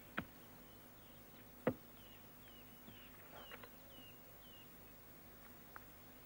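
Two sharp knocks of playing cards slapped down on a wooden table, the second, louder one about a second and a half after the first. Then a bird in the background chirps a run of short, high, falling notes.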